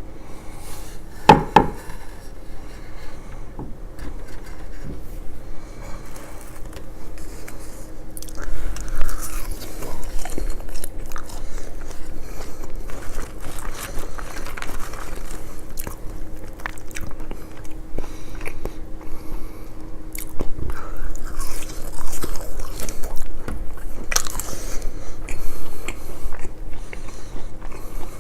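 Close-miked ASMR eating: a person biting and chewing crunchy fried fish and fries, with repeated crisp crunches and wet chewing. There is a sharp, loud crunch or knock about a second in.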